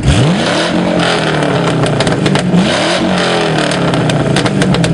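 A car engine revving: the pitch rises quickly at the start, the engine runs on steadily, then it revs up again about two and a half seconds in. Several sharp clicks come near the end.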